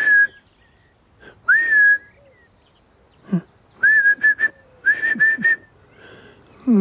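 A man whistling to call his cat to its food. There is a brief note, then a longer note that rises and holds, then two runs of quick short whistle notes, three and then four.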